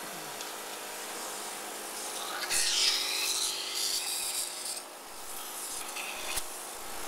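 Cough assist (mechanical insufflation-exsufflation) machine running with a steady hum, with a louder rasping rush of air through the mask and hose from about two and a half to five seconds in, and a short click near the end.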